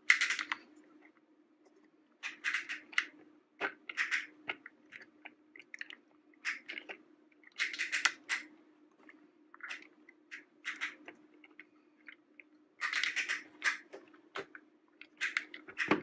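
Plastic toy truck parts clicking and clattering as the claw grabber on a toy crane truck is worked by hand, in short irregular bursts.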